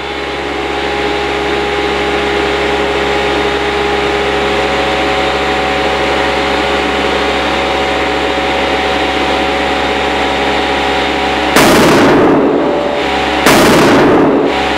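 Air pump running steadily as it forces air through a hose into a Nike soccer ball, then the overinflated ball bursts with a very loud bang, heard twice about two seconds apart, each bang ringing on for over a second.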